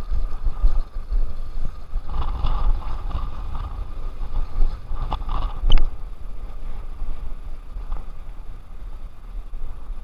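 Wind buffeting the microphone with an uneven low rumble, and a sharp click about six seconds in.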